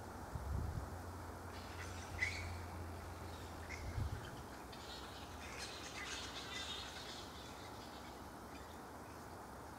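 Small birds chirping in short, scattered calls, over a low hum that fades out about four seconds in.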